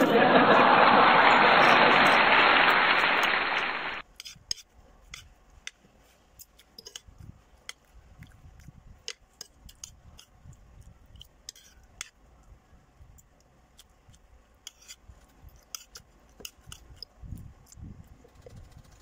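A loud, even rushing noise for about the first four seconds that cuts off sharply. After it, a metal spoon and fork clink and scrape on a plate in many short clicks, with faint chewing between them.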